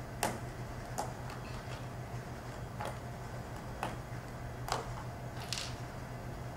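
Snap buttons clicking shut as wooden bracing supports are snapped back into the corners of a model building made of wooden dowels. About six sharp clicks, spaced roughly a second apart.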